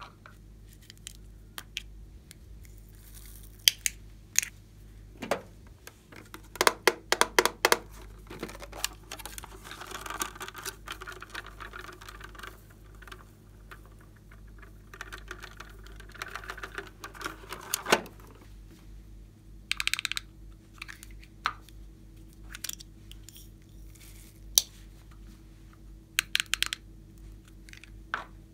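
Glossy slime being squished and worked by hand, making bursts of sticky clicks and crackling pops that come and go, over a faint steady hum.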